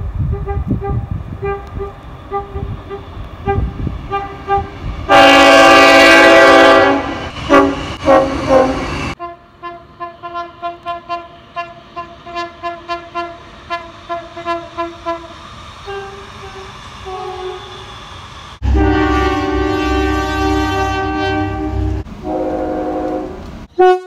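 Train horns sounding in several short clips. A long, very loud chord-like blast comes about five seconds in, followed by short toots. A second loud blast starts around nineteen seconds in over a low rumble, and a shorter blast follows it.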